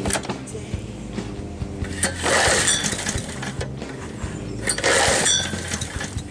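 Toro walk-behind lawn mower's small engine running cold just after starting, its pitch shifting a few times, with two louder rushing surges about two and five seconds in.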